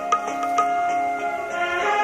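Instrumental background music: held melody notes that shift in pitch, with a couple of sharp struck accents early on.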